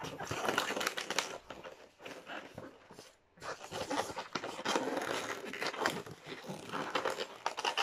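Latex modelling balloons being squeezed and twisted by hand into a rose bud, the rubber rubbing with an irregular crackle that stops briefly about three seconds in.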